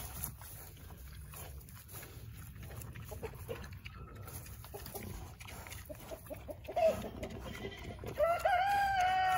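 Berkshire piglets making low, scattered sounds as they eat from a hand; near the end a rooster crows, one long, steady call that is the loudest sound.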